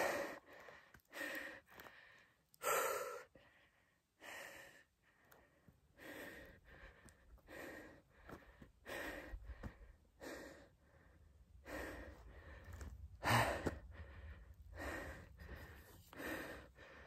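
A man breathing hard and rhythmically close to the microphone, each breath in and out heard in turn, out of breath from climbing a steep rocky slope.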